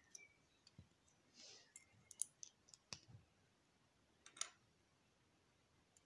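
Faint clicks of small clear plastic Lego bricks being handled and pressed together: a handful of short sharp ticks spread over several seconds, the clearest about two seconds in and again just past four seconds.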